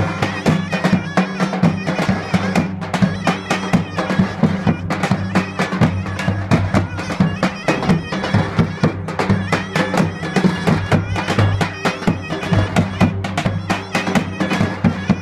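Zurna playing a folk melody over two davul drums beaten in a fast, driving rhythm.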